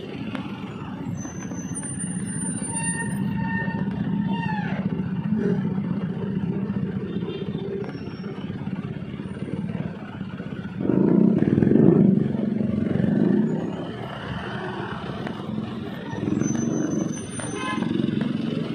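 Slow city street traffic: motorcycle and vehicle engines running close by, with a louder engine surge about eleven seconds in. A brief high whining tone drops in pitch about four seconds in.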